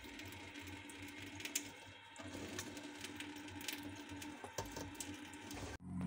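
Faint trickling and splashing of tap water as a budgerigar bathes in a kitchen sink, with scattered small clicks and a steady low hum underneath.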